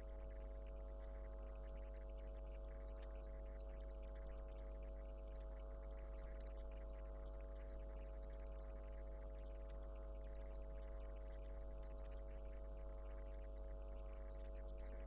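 Steady low electrical hum, like mains hum in the recording, unchanging throughout, with one faint short tick about six and a half seconds in.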